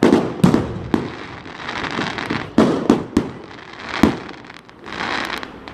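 Consumer aerial fireworks going off: a series of sharp bangs, about seven in all and loudest near the start and about four seconds in, with a hissing crackle in between as the shells burst and burn out.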